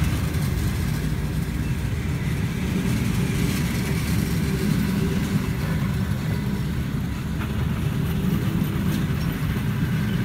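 Russian Railways passenger coaches rolling slowly past at low speed, giving a steady low rumble from wheels and running gear with a few faint ticks.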